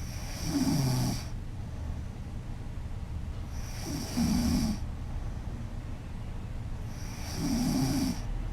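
A woman snoring loudly: three rattling snores, each about a second long, coming about three and a half seconds apart.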